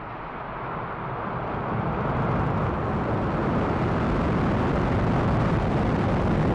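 Falcon 9 first stage's nine Merlin engines at liftoff: a deep, steady rocket roar that grows louder over the first two seconds or so as the rocket climbs off the pad, then holds steady.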